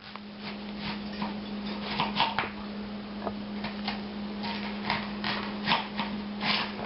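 Knife slicing an onion, a string of irregular light taps a few per second, over a steady low hum.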